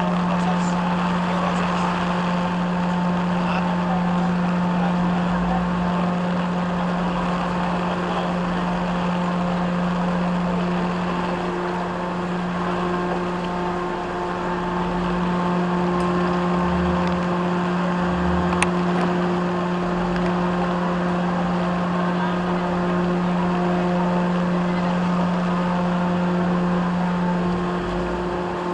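Philippine Red Cross amphibious truck's engine running at a steady speed, a constant low drone, over the hiss of rain falling on floodwater.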